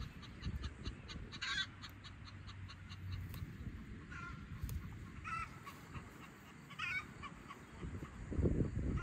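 Domestic fowl calling in a village meadow: several short calls a second or two apart, over a faint quick ticking and a low rumble that grows louder near the end.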